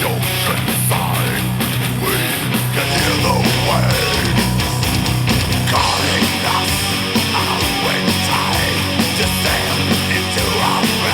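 Heavy rock music with guitar, played back through a pair of desktop speakers and recorded by a microphone in the room.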